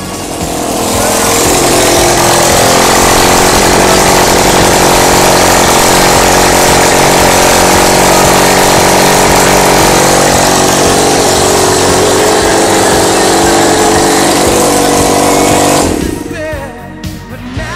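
Honda CB250 motorcycle engine running close to the microphone, loud and steady with small rises in pitch. It stops about sixteen seconds in.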